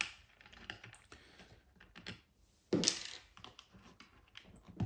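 Irregular light clicks and taps of an 8 mm socket tool and small nuts being worked on the back of a Honda CBX1000 instrument cluster, with one louder knock a little under three seconds in.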